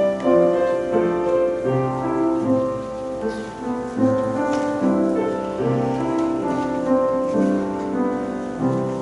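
Piano playing slow sustained chords under a melody, each new chord struck and then fading.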